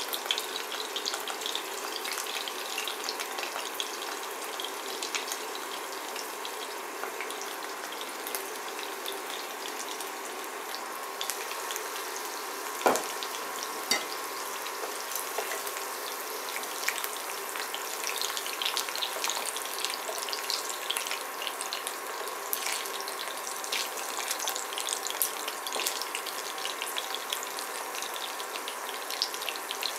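Chicken nuggets sizzling and crackling as they fry in shallow vegetable oil in a ceramic pan. Two sharp knocks, about 13 and 14 seconds in, come as the pan's metal lid is taken off.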